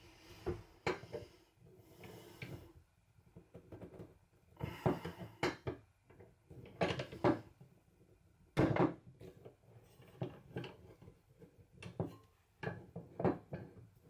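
Screwdriver turning the screw that holds the crank on top of an 1890s cast-iron coffee grinder, with the crank and shaft shifting against the iron body: irregular short clusters of metallic clicks and scrapes with quiet gaps between them. The loudest cluster comes just past halfway.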